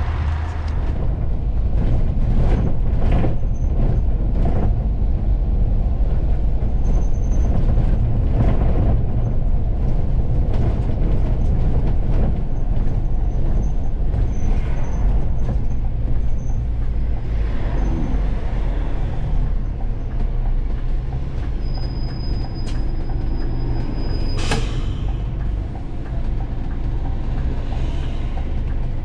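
Scania Fencer F1 coach on the move, heard from inside near the cab: a steady low engine and road rumble with scattered rattles and clicks, and one sharp knock late on.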